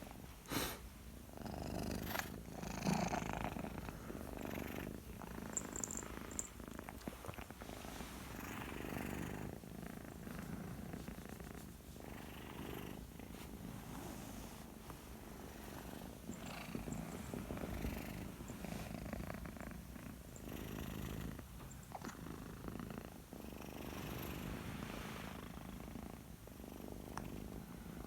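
Ginger tabby cat purring steadily, the purr swelling and fading every second or two, with a couple of short sharp sounds near the start.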